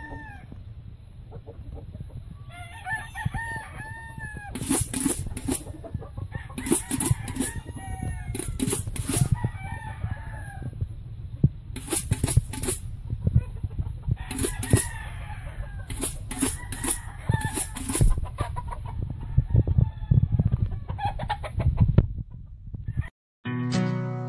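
Kelso gamefowl roosters clucking and crowing in their pens, with a string of sharp loud knocks and a steady low rumble under them. Acoustic guitar music comes in just before the end.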